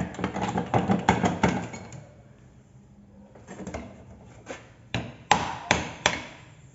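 Hammer blows on metal knocking a worn, loose front ball joint out of a Chevrolet Spin's lower control arm: a quick run of taps, a few lighter taps in the middle, then four sharp, louder single strikes near the end.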